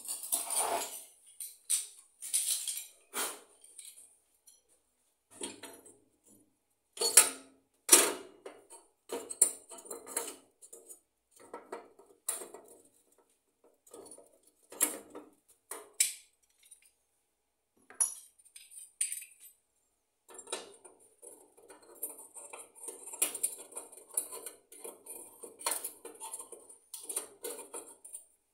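Gas-stove burner caps and other metal stove parts clinking and knocking as they are handled and set into place on the stovetop: a string of sharp clinks at irregular intervals, loudest about seven and eight seconds in.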